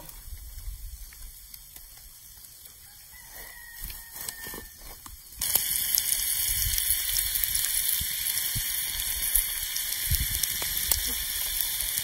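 A rooster crows in the background over a quiet first few seconds. About five seconds in, a steady loud sizzle of meat and onions frying on a hot stone over a wood fire starts suddenly and carries on.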